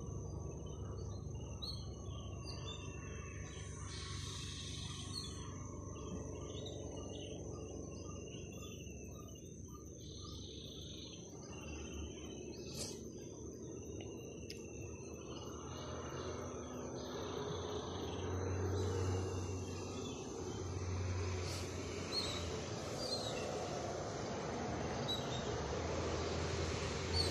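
Outdoor garden ambience: birds chirping now and then over a steady high-pitched whine, with a few low rumbles in the second half.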